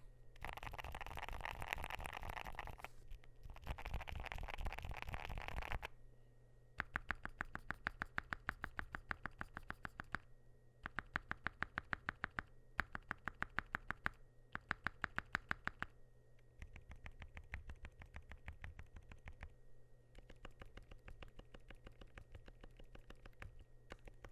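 Mechanical keyboard with Gateron Zero Degree silent linear switches on a polycarbonate plate being typed on. Fast continuous typing gives way about six seconds in to bursts of rapid, evenly spaced keystrokes, which grow softer over the last eight seconds.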